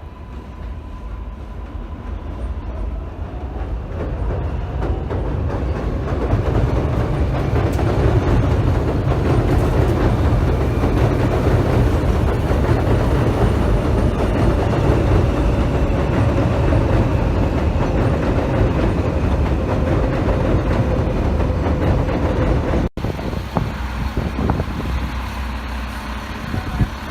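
Heavy vehicle rumble, low and noisy, building up over the first several seconds and then running steadily with a faint whine. It drops out abruptly about 23 seconds in and carries on quieter afterwards.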